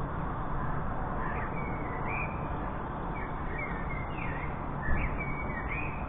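Bird calls: a quick series of short, gliding call notes starting a little over a second in, over a steady background hiss.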